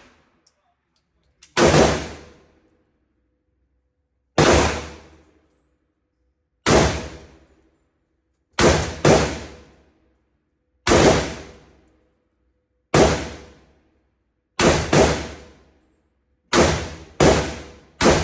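About eleven gunshots on a shooting range, single and in quick pairs, each shot's report ringing out for about a second before dying away.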